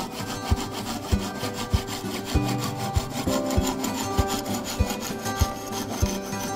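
Japanese kugihiki flush-cut pull saw, its thin flexible blade held flat to the board, sawing through a wooden dowel with steady strokes, a little under two a second.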